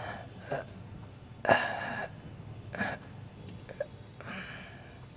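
A man's sleepy groans and breathy sighs as he is roused from sleep and stretches in bed: several short bursts, the loudest about a second and a half in, and a longer sigh near the end.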